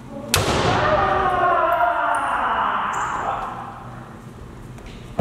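A kendo strike: a sharp crack of a bamboo shinai landing on armour, with a stamping step on the wooden floor, and at once a long drawn-out kiai shout of about three seconds that slowly falls away. Another sharp strike cracks right at the end.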